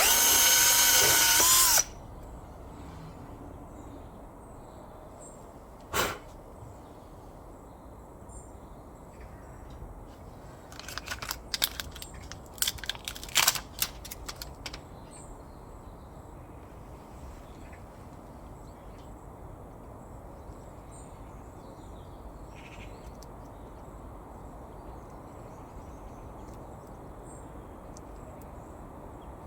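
Power drill spinning the tire plug kit's reamer bit, running for under two seconds before its pitch falls as it stops. Later come one sharp click and a burst of clicks and rattles.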